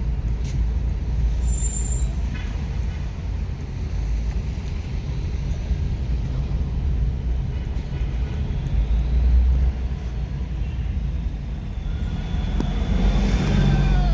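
Low, steady rumble of a car's engine and road noise in slow town traffic, with a brief high whine near the end.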